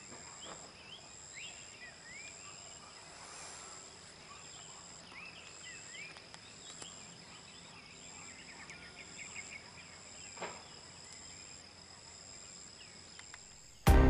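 Outdoor ambience of insects: a steady high-pitched drone, with a second high tone pulsing on and off. Short scattered bird chirps sound over it.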